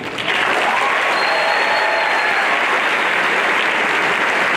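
A large audience of students applauding steadily in an auditorium.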